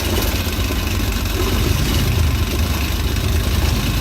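Suzuki Bolan's three-cylinder fuel-injected engine idling steadily during a cylinder balance test for a misfire. With the second cylinder's injector unplugged the engine shakes, which shows that this cylinder is firing properly.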